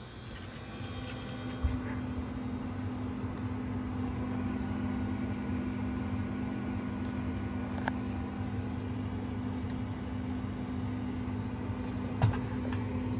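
VFD-driven water-cooled CNC router spindle running with a steady hum that grows louder over the first two seconds, over the machine's fans. A few short knocks stand out, the loudest near the end.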